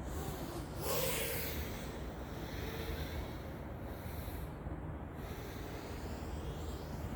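Wind rushing over a microphone, a steady noise with a louder gust about a second in.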